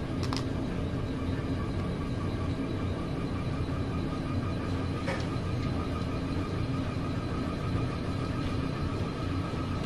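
Steady low rumble with a faint, even mechanical hum, like a running motor, and a couple of faint clicks.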